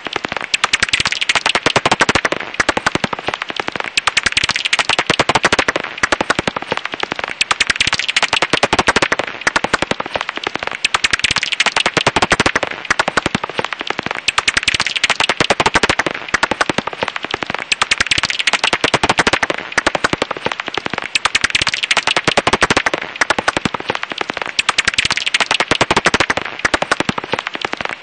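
Japanese house bat (Pipistrellus abramus) calls: a fast, unbroken stream of sharp clicks that swells and eases every second or so.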